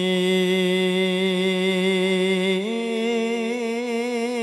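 A male voice singing one long held note of a sholawat (Arabic devotional chant) with a slight waver, stepping up to a higher note about two and a half seconds in, unaccompanied by drums.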